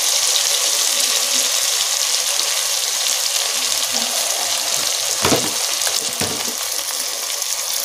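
Brinjal (eggplant) pieces with tomato and onion sizzling steadily in hot oil in a pressure cooker pan, sautéing. A knock sounds about five seconds in, with a softer one a second later.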